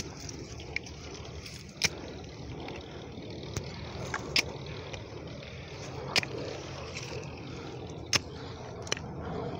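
Outdoor wind rumble on the microphone, with a sharp knock every couple of seconds from a hoe chopping into dry, hard ground.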